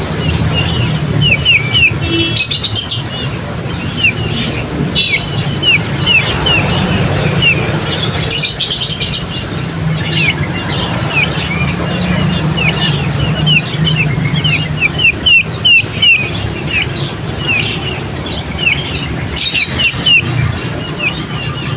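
A dense chorus of small birds chirping: many short, quick chirps overlapping one another throughout, over a steady low hum.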